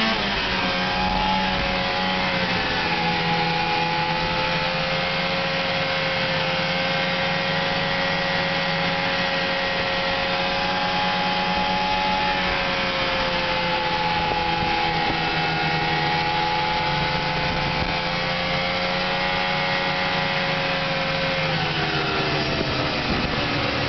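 1998 Ski-Doo MXZ 500 snowmobile's two-stroke twin engine running at a steady cruising speed, with rushing noise from the ride around it. The engine's pitch eases down in the first couple of seconds and drops again near the end as it slows.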